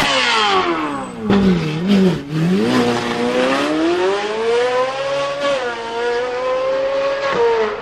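Ferrari 458 Italia's V8 engine pulling away. The revs fall for about a second, then the engine accelerates with a long rising note that levels off, and the pitch drops suddenly at a gear change near the end.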